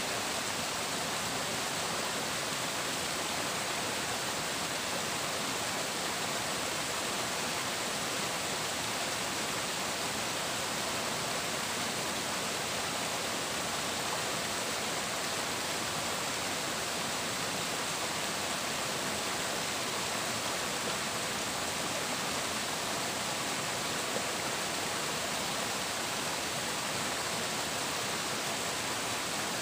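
Running water: a steady, unbroken rush of flowing water, even throughout and with no splashes or other sounds standing out.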